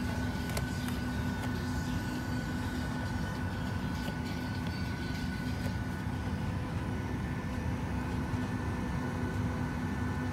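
Steady airliner cabin noise inside a Boeing 737-900ER: an even rushing drone with a low hum and a faint high steady tone. A few faint light clicks come near the start.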